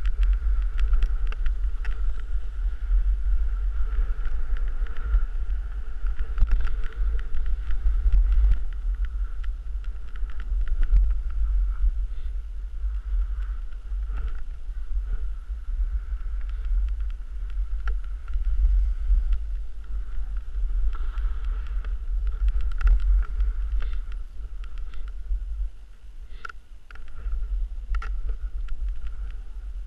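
Wind rumble on an action camera's microphone while riding fast down packed snow, with the steady hiss and scrape of edges on the snow. It eases off briefly near the end, where a couple of sharper clicks stand out.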